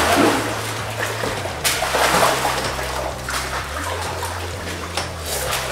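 Pool water splashing and sloshing as a large alligator lunges half out of it to grab meat. There is a burst of splashing right at the start and another about two seconds in.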